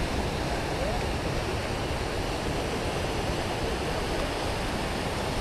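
Steady wash of ocean surf breaking on the beach.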